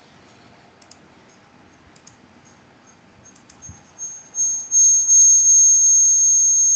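A few faint computer mouse clicks, then from about four seconds in a loud, steady high-pitched electronic whine over hiss in the video-call audio, coming on in a few quick steps.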